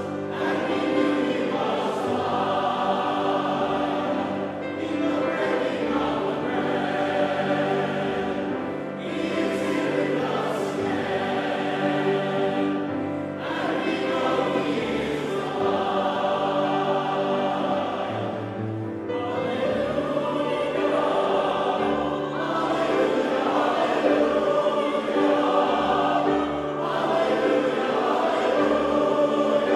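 Choir singing a hymn, sustained phrases with brief breaths between them.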